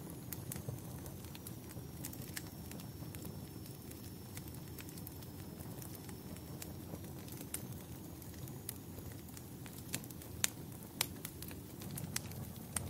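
Wood fire burning in a fireplace: a steady low rumble of flames with scattered sharp crackles and pops, the two loudest pops near the end. A faint high whistle drifts through most of it.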